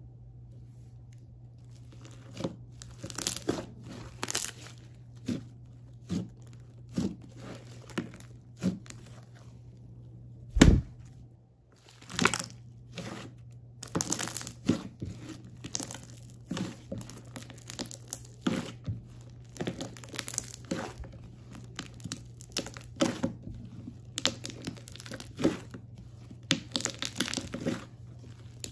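Hands squishing and kneading thick, bubbly slime, making a run of sharp, irregular crackles and pops as trapped air bursts. The crackles begin about two seconds in and grow denser in the second half, with one loud thump about ten seconds in. A faint steady low hum runs underneath.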